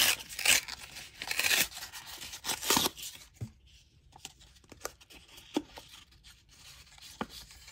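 Paper wrapper of a trading-card pack being torn open in several quick rips over the first three seconds, then quieter rustling and light clicks as the cards are slid out.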